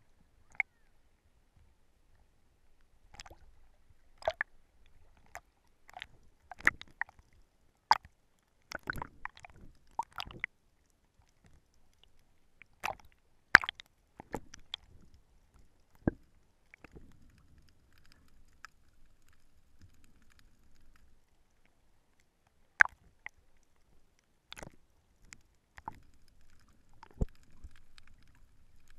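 Underwater sound picked up through a GoPro camera in its waterproof housing: sharp clicks and knocks at irregular intervals, often a second or less apart, over faint water noise.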